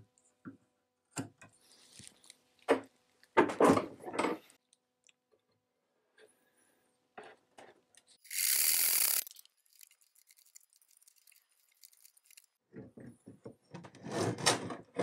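Painted wooden rocking-chair parts being handled and their mortise-and-tenon joints test-fitted: scattered light knocks and clicks of wood on wood, with scraping and rubbing. A short scrape comes about three and a half seconds in, a louder scraping noise about a second long a little past halfway, and a cluster of rubbing and tapping near the end.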